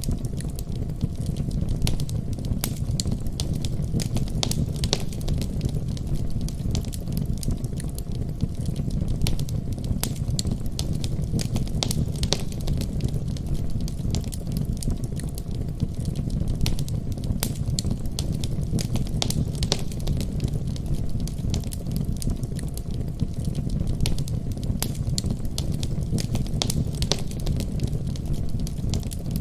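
Fireplace fire crackling: frequent irregular pops and snaps over a steady low rumble.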